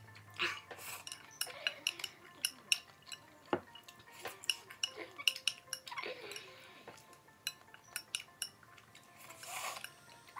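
Chopsticks clicking and tapping against a ceramic bowl at an uneven pace while noodles are eaten, with a few short slurps.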